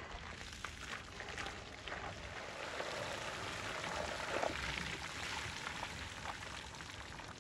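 Water poured into a large perforated metal basin, splashing and spattering as it runs out through the holes onto a wooden table, loudest about midway.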